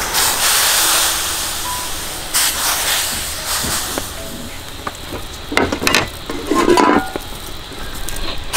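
Raw chicken legs sizzling as they fry in a pan, the hiss loudest just as a leg is laid in at the start, with a few short clatters and knocks about two-thirds of the way through.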